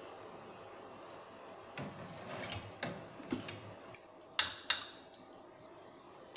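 A steel slotted skimmer clinking and scraping against a stainless steel pot while stirring grated potato in hot water: a run of light metal clicks, with the two sharpest clinks close together about four and a half seconds in.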